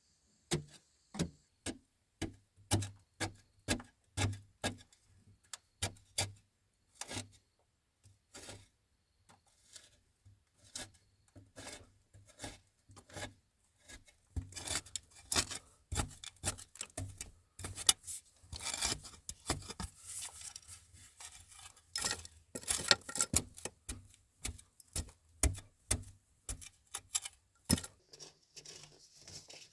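Irregular series of sharp knocks and clicks, about two a second at first. From about halfway they grow denser and mix with scraping and rubbing.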